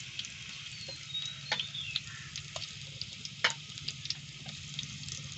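Masala-coated boiled eggs frying in hot oil in a clay pot: a steady sizzle with scattered sharp pops and crackles, the loudest about three and a half seconds in.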